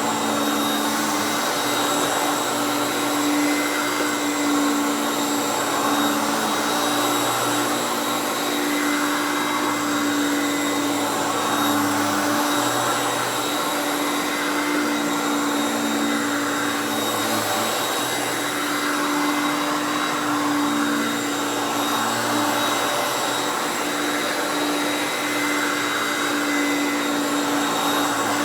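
Vintage Hoover Concept One Power Drive U3101 upright vacuum running steadily, its 5.6 amp direct-air motor giving a constant hum over the rush of air.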